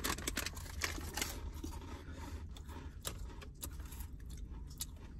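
Irregular crackling and rustling from a strawberry puff snack and its packet being handled and eaten, many short crackles at uneven intervals, over a low steady hum.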